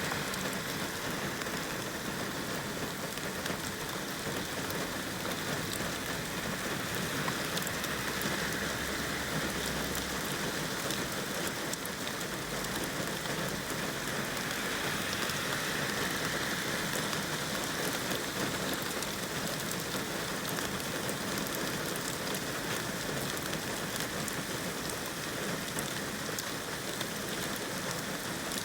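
Steady rain falling and striking surfaces, with many fine ticks of individual drops.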